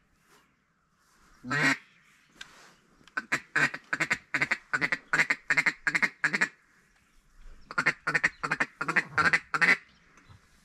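Duck call blown in strings of loud quacks: one quack, then a quick run of about a dozen, a short pause, and a second run of about seven.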